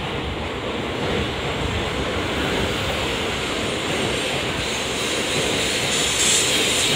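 Tokaido Shinkansen train gliding into the platform at close range, a steady rushing noise of its wheels and air along the cars. It grows louder and hissier near the end.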